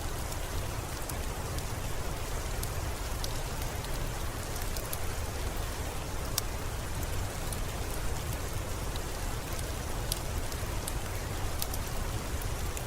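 Steady rain falling, an even hiss with a low rumble underneath, broken by scattered sharp ticks about once or twice a second.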